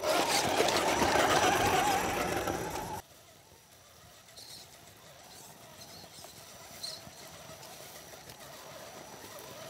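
Radio-controlled 4x4 crawler truck's dual brushed electric motors whining under throttle, the pitch wavering, with the noise of the tyres on ice. It cuts off abruptly about three seconds in, leaving only a faint background with a few faint high chirps.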